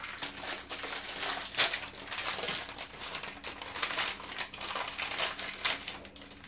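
Plastic Oreo biscuit packet crinkling and rustling in the hands as it is opened, an irregular crackle that stops near the end.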